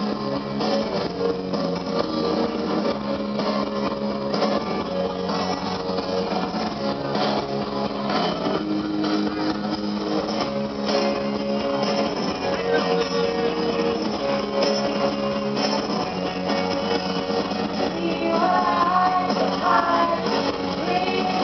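Music: a guitar-led song with held notes and a steady beat.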